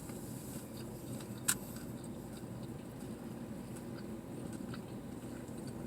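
Quiet chewing of a taco, with a few faint mouth clicks and one sharper click about a second and a half in, over a steady low background hum.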